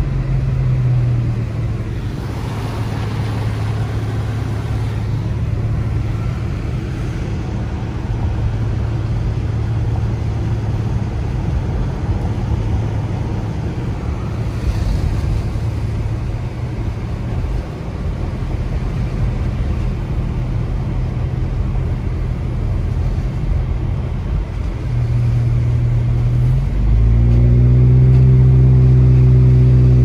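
Car engine running with steady road noise while driving, heard from inside the car. Near the end the engine note firms up and gets louder, as when the car accelerates.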